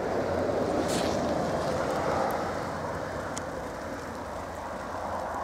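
A car driving on a snow-covered road: steady engine and road noise that eases a little partway through, with a couple of faint clicks.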